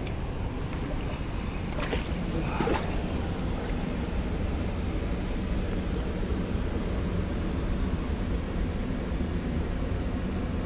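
Steady rushing of river water below a lock and dam, with wind rumbling on the microphone.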